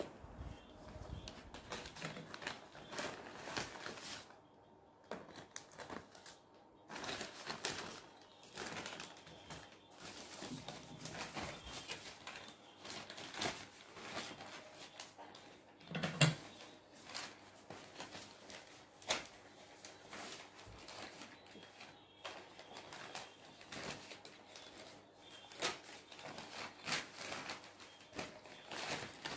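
Brown paper takeaway bag rustling and crinkling as it is handled, folded and smoothed flat, in irregular crackles with a few louder knocks from cardboard food boxes and hands on the table, the loudest about halfway through.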